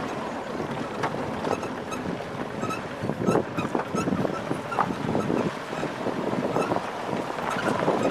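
Wind buffeting the microphone of a camera held out of a moving safari vehicle, over the rumble of the vehicle driving on a rough dirt track, with frequent knocks and rattles as it jolts over bumps.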